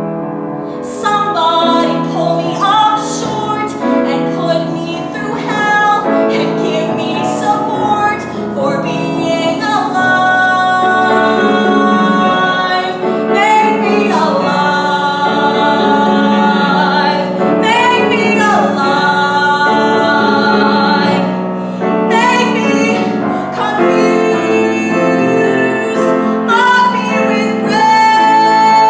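A woman singing a musical theatre song with grand piano accompaniment, her voice carrying a clear vibrato and holding one long high note near the end.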